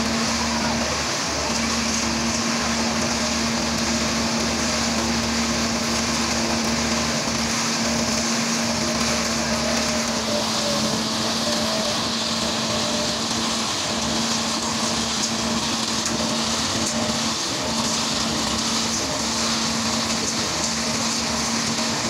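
Ajax self-loading concrete mixer running steadily with a constant hum, its drum turning as it discharges wet concrete down the chute.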